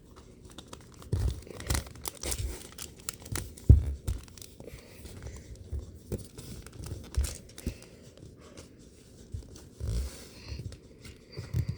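LEGO plastic pieces being handled and pressed together: irregular clicks and soft knocks, the loudest about four seconds in.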